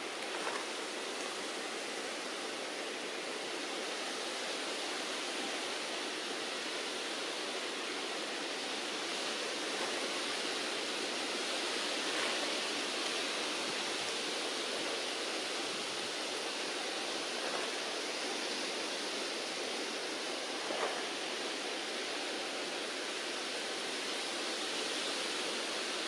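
Steady, even rushing noise of outdoor ambience, with a few faint ticks scattered through it.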